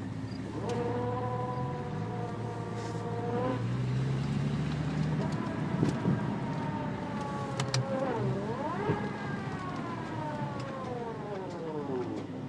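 BMW M5 running with a whine like a supercharger's, the odd sound it makes when coasting in gear. The whine's pitch slowly falls, dips and climbs again about eight seconds in, then glides down near the end, over a low engine drone.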